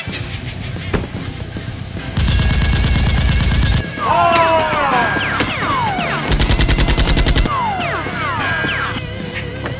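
Sound-effect machine-gun fire in two rapid bursts, each about a second or more long, with falling whistling sounds between and after the bursts, over background music.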